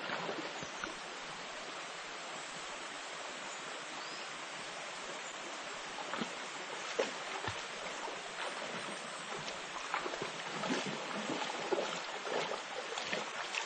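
Shallow river running over stones, a steady rushing hiss, with a dog splashing as it wades through the water, the splashes getting more frequent over the second half.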